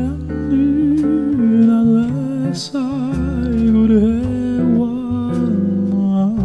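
A song: a voice carries a slow, wavering melody over guitar and low bass notes.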